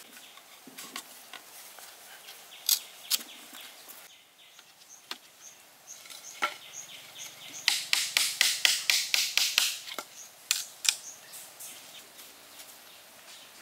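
Bamboo slats and a thin bamboo stick of a small handmade bamboo bridge clicking and clacking as it is worked by hand. A few scattered clicks come first, then a quick run of many clicks lasting about two seconds.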